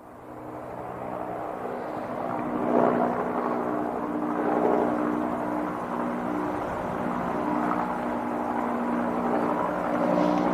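Helicopter in flight: fades in from silence over the first couple of seconds, then a steady drone of rotor and engine with small swells in loudness.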